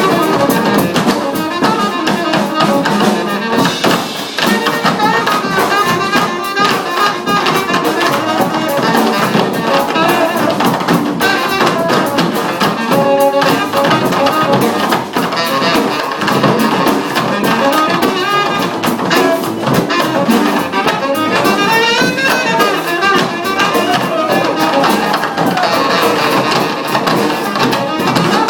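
Funk band playing live, a horn line over a drum kit.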